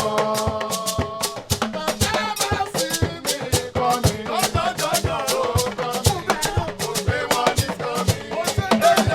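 A hymn sung to the steady, fast beat of rattles or shakers.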